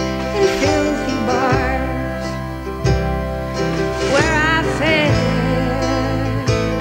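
Country-folk song: acoustic guitar and a steady bass accompaniment with a woman's singing voice.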